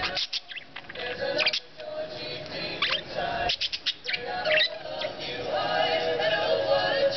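Budgerigars chirping and warbling: many quick, sharp chirps over a continuous warbling chatter that grows busier in the second half.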